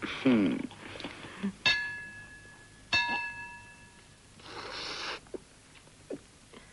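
Stemmed glasses clinked together twice in a toast, each clink a sharp strike followed by a clear ringing tone that fades over about a second, the strikes about a second apart. A short vocal exclamation comes right at the start, and a brief sip is heard near the end.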